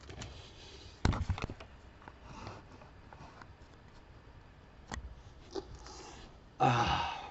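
Bumps and rustling as a man handles a small dog held against him close to the microphone, with a loud knock about a second in and a few lighter clicks. A brief low sound of a man's voice comes near the end.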